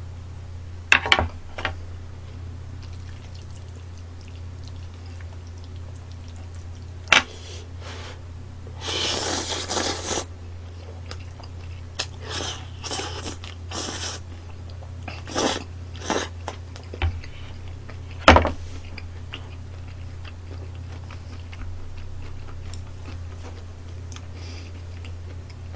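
Close-up eating sounds: slurping of glass noodles and spicy stir-fried gopchang, with chewing and a few sharp clicks. The longest, loudest slurp comes about nine seconds in, with shorter ones between about twelve and sixteen seconds. A steady low hum runs underneath.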